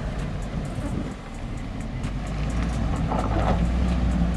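Toyota Land Cruiser 300's engine running at low revs as the SUV crawls over rough ground in low range, the engine note growing louder from about a second in.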